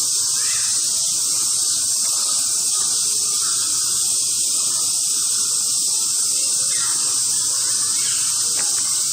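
Chorus of cicadas, a loud, steady, high-pitched sizzling drone that does not change.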